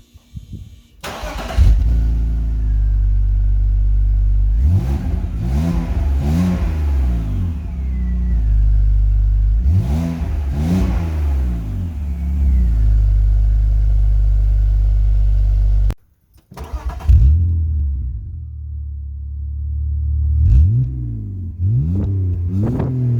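BMW E46 320i straight-six engine started and idling through its exhaust, revved in quick blips a few times. About two-thirds of the way through, the sound cuts off, then the engine is started again and given two more revs.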